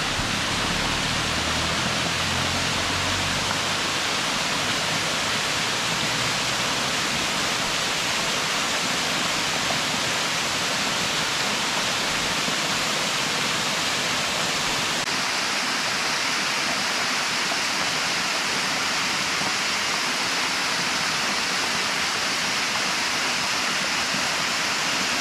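Small waterfall pouring down a rock face onto rocks below, a steady rush of falling water.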